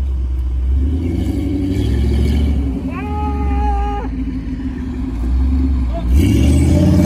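Engine of a Jeep Grand Cherokee running under load as the SUV ploughs through deep mud, a steady low drone, revving up sharply about six seconds in.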